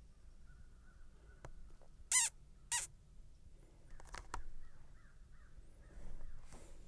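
A bird gives two short, harsh calls about half a second apart, a couple of seconds in. A few faint clicks and soft distant bird sounds follow.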